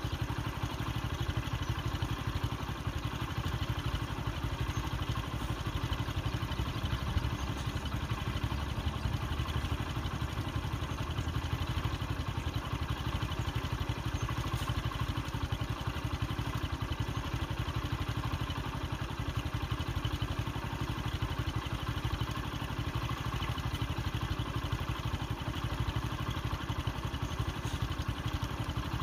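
A vehicle engine idling steadily: a constant low rumble that does not rise or fall, with no separate knocks or calls standing out.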